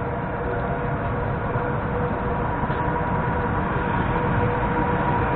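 Long-distance passenger train approaching along the track, its low rumble growing slowly louder, with a steady hum.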